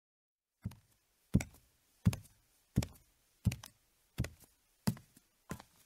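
A steady beat of knocks starts about half a second in, roughly three every two seconds, each a deep thud with a sharp click on top. They open a music track, whose other instruments come in just after.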